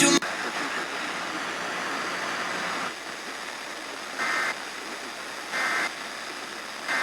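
Weather-radio static hiss, then three short digital data bursts about a second and a half apart: the SAME end-of-message code that closes an Emergency Alert System / NOAA Weather Radio alert.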